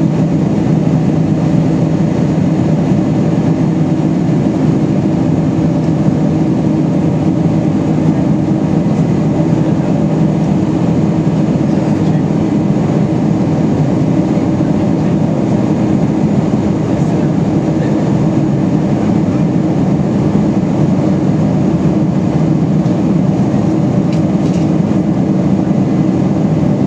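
Steady low drone of engine and airflow noise inside the cabin of a Boeing 747-400 in flight, unchanging throughout.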